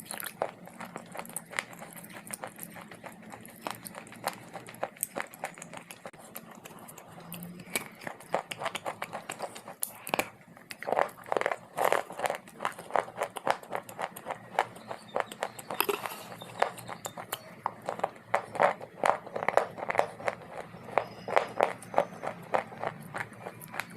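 Someone biting and chewing hard, dry clay: a run of crisp crunches, sparse at first, then denser and louder from about ten seconds in.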